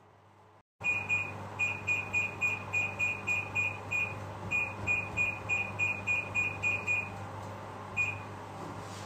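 Electronic beeping: a rapid run of short, high, identical beeps, about three to four a second with a brief break partway, stopping about seven seconds in, then one last beep, over a steady low hum.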